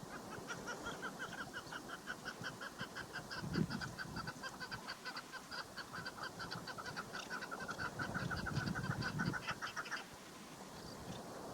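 Female chukar partridge calling: a long, fast run of clucking notes, about six a second, that stops abruptly near the end.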